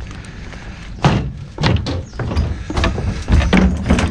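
A run of irregular knocks and thuds, about six in four seconds, over a steady low rumble.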